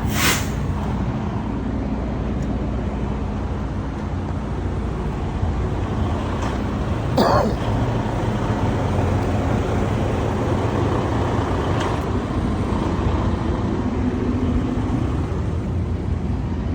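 Vehicle engine idling with a steady low hum, broken by a short sharp sound at the start and a louder one about seven seconds in.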